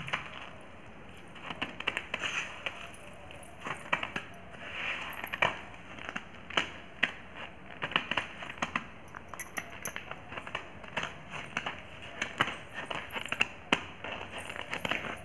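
Raw rice grains crackling and crunching under sandal soles as feet step and shuffle on them, in many irregular sharp clicks, with the small bells of silver anklets jingling.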